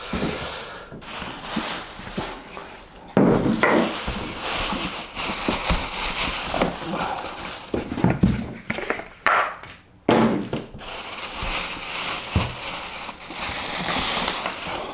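Clear plastic packaging wrap crinkling and cardboard rustling and scraping as the contents of a shipping box are handled and pulled out, with a short pause about ten seconds in.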